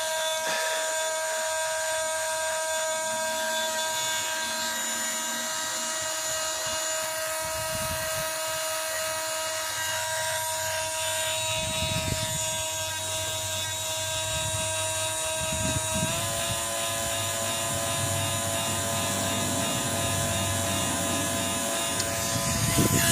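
Parkside cordless multi-tool motor running steadily at full speed with a high, even whine that steps slightly up in pitch about two-thirds of the way through. The tool is stuck on: its switch will not turn it off or change its speed, a fault in the switch or its control electronics.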